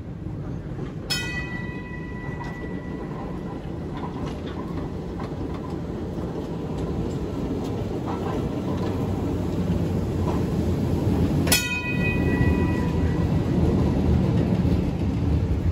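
Vintage electric tram no. 520 running on street track as it approaches and passes close by, its running noise growing louder. Its bell is struck once about a second in and again at about 11 seconds, each strike ringing on briefly.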